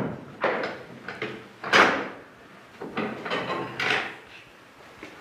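A key and latch rattling in the metal lock of an old wooden door: a run of sharp metallic clicks and clanks, the loudest just under two seconds in.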